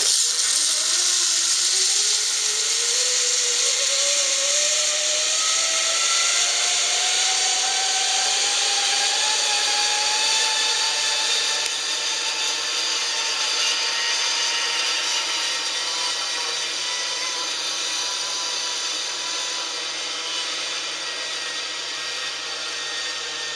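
Zip line trolley pulleys running down a steel cable: a hissing whir with a whine that rises in pitch for about ten seconds as the rider picks up speed, then holds steady and slowly fades.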